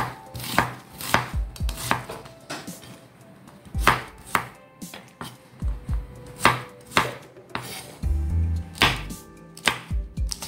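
Chef's knife chopping shallots, garlic and red chilli on a bamboo cutting board: irregular knife strikes on the wood, about one or two a second, with a short pause around three seconds in.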